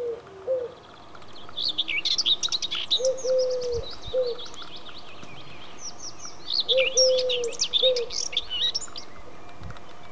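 Small songbirds chirping and trilling in quick high phrases, over a dove's low cooing that comes in pairs, a longer note followed by a shorter one, every few seconds.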